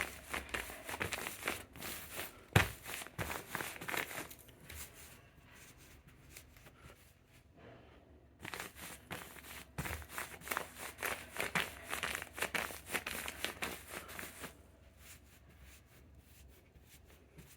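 Cushion with fabric-covered buttons crinkling and crackling as it is pressed, in two bouts of a few seconds each with a quieter pause between: an abnormal noise coming from the cushion.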